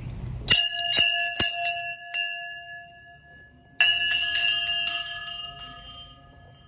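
Hanging brass temple bells rung by hand. There are four quick strikes in the first two seconds and one more about halfway through, each leaving a long metallic ring that slowly fades away.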